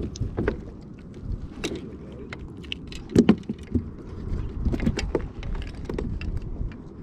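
Irregular clicks, knocks and rattles of fishing gear and fittings being handled on a plastic kayak, over a steady low rumble; the loudest cluster of knocks comes about three seconds in.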